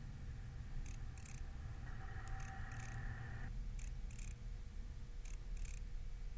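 EBS electronic walking bait's built-in sound module giving off short, high-pitched crackling clicks in pairs, one pair about every second and a half.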